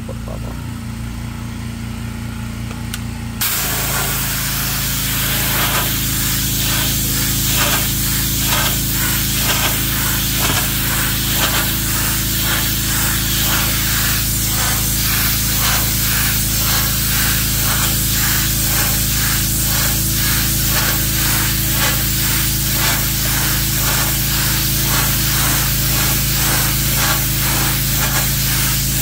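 Pressure washer with its motor humming steadily; about three and a half seconds in the trigger is squeezed and the high-pressure jet hisses loudly onto wet concrete, with a fast, even pulsing in the hiss. The jet is blasting degreased grease and dirt off the floor.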